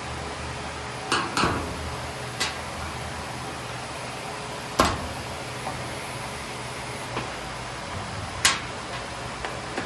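A few sharp metallic knocks and taps as an old handsaw is shifted on a steel table and its handle screws are worked out with a screwdriver; the loudest knock comes about halfway through and another strong one near the end, over a steady low hum.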